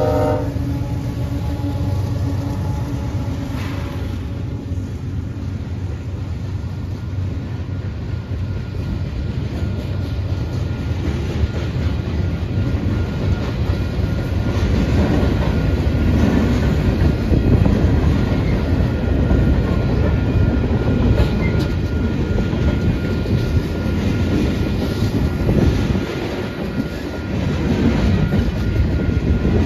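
A freight train passes close by. The locomotive's horn cuts off about half a second in, then the diesel locomotive rumbles past and covered hopper and tank cars clatter over the rail joints, growing louder toward the middle.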